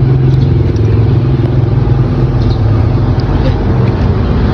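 A 1989 Simson S51's single-cylinder two-stroke engine running steadily, without revving, after almost two weeks unused.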